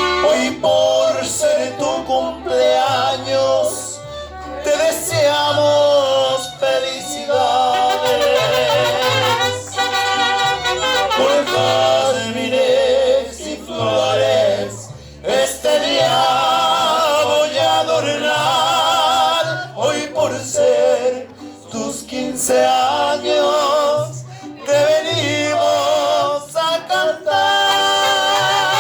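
Latin tropical band music: a melody with strong vibrato over a steady, stepping bass line.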